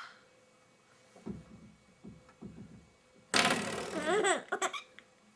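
A few soft, low knocks, then about three seconds in a breathy laugh-like vocal burst of about a second and a half, its pitch bending up and down.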